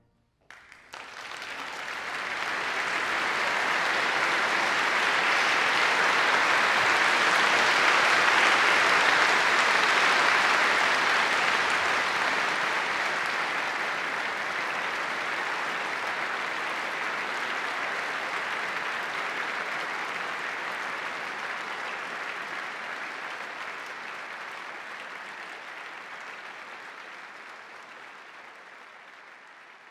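Concert audience applauding, swelling over the first few seconds and then slowly fading toward the end.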